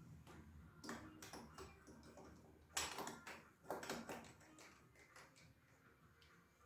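Faint scattered clicks and knocks of tools or small metal parts being handled during scooter repair work, bunched between about one and four seconds in, the sharpest two near the middle.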